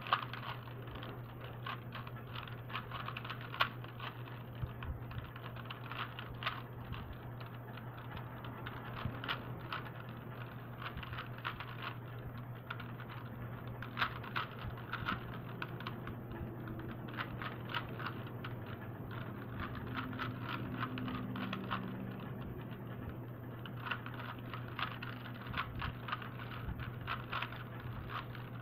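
3x3 Rubik's cube being turned fast in the hands during a timed solve: rapid, irregular plastic clicks and clacks of the layers turning, in flurries with short pauses. A steady low hum sits underneath.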